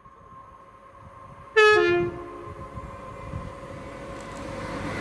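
East Midlands Railway Intercity diesel multiple unit sounding its two-tone horn, a short high-then-low blast about a second and a half in, then the rising rumble of the train as it draws near.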